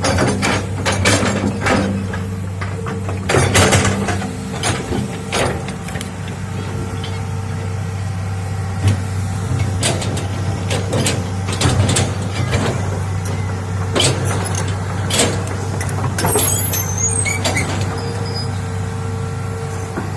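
Hitachi excavator's diesel engine running steadily under load, with repeated sharp knocks and clanks throughout.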